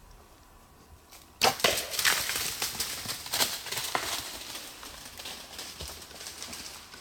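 A sudden sharp crack of a bow shot about a second and a half in, followed by a whitetail deer crashing off through dry leaves and brush, the rustling fading over several seconds.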